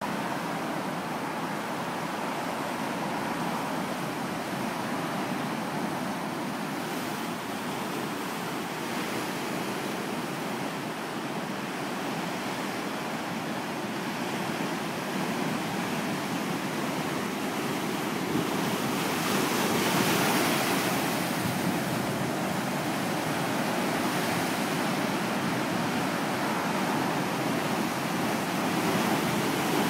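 Ocean surf: a continuous wash of breaking waves, swelling louder about two-thirds of the way through and again near the end.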